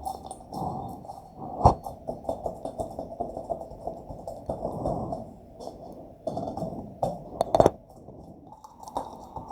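Slime being squished and kneaded by hand, making irregular small wet crackles, with two sharp pops, one about two seconds in and one after about seven and a half seconds.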